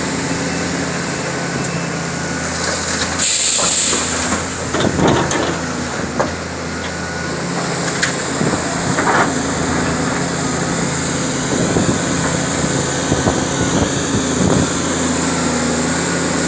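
Caterpillar 336D2 hydraulic excavator's diesel engine running steadily under load as the machine works at full hydraulic pressure. A brief sharp hiss comes about three seconds in, followed by a clatter of rock and dirt dropping into the steel body of a dump truck, with scattered knocks later as the bucket digs.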